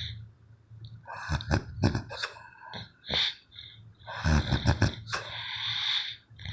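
A person snoring heavily: a run of noisy snore breaths in a slow rhythm, the longest starting about four seconds in.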